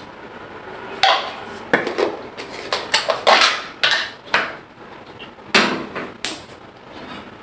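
Kitchenware clattering as it is set down and handled on a countertop, such as a ladle, plate, glass jar and plastic container: about ten irregular sharp knocks and clinks, starting about a second in and stopping near the end.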